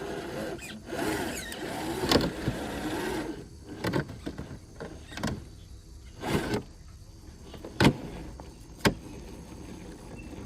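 Traxxas TRX4 crawler's 550 brushed electric motor and gear drivetrain whining, rising and falling in pitch as the throttle is worked for the first few seconds, then quieter with several sharp knocks spaced a second or so apart.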